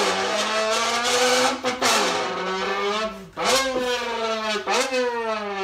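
A man imitating a racing car engine with his voice through a drink can held to his mouth. He holds a steady engine-like note that dips briefly and picks up again about every second and a half, like gear changes while accelerating in a drag race.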